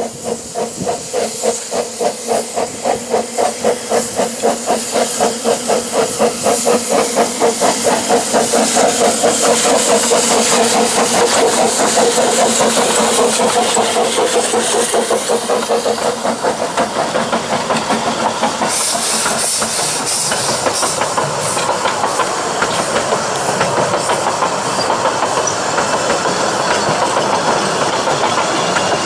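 Ffestiniog Railway double Fairlie steam locomotive No 10 'Merddin Emrys' pulling away with its train, its exhaust chuffing in quickening beats. Then the carriages roll past over the narrow-gauge track.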